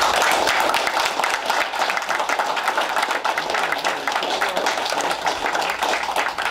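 Audience applauding, many hands clapping together, thinning out near the end.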